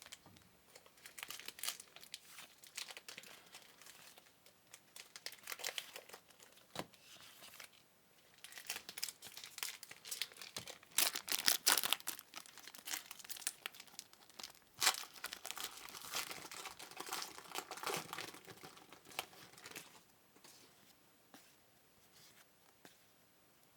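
Trading-card pack wrappers being torn open and crinkled by hand, an irregular crackling that is busiest in the middle and thins out near the end.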